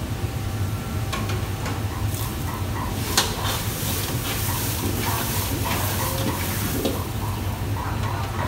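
Food frying in a wok over a high gas flame, sizzling in swells as it is tossed, with a metal ladle knocking and scraping against the wok; one sharp clank about three seconds in. A steady low hum runs underneath.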